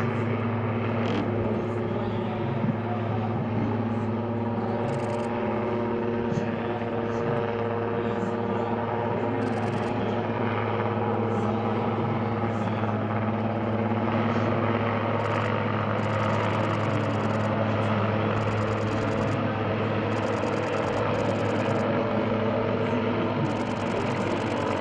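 Military utility helicopter flying low, its turbine and rotor running steadily with a constant hum.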